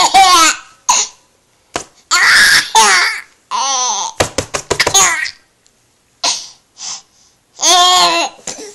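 Baby laughing in several loud bouts with short breaks between them, one bout coming in quick rhythmic pulses about halfway through.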